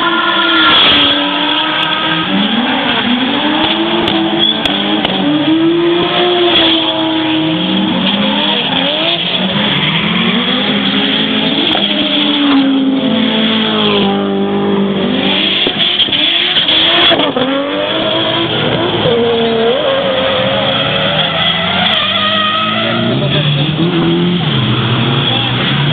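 Drift cars' engines revving up and falling back again and again, more than one at a time, while their tyres squeal and skid as they slide through the corners.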